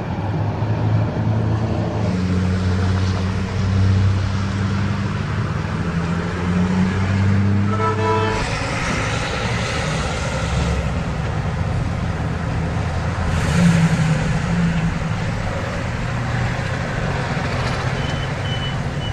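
Highway traffic: pickup trucks towing horse trailers and heavy trucks drive past with a steady engine rumble and tyre noise on asphalt. About eight seconds in there is a short horn toot, followed by a rush of passing vehicles.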